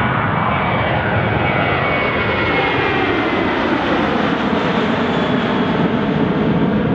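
Airbus A320 airliner's twin jet engines at takeoff power as it climbs away, a loud steady roar with whining tones that slide down in pitch as it passes.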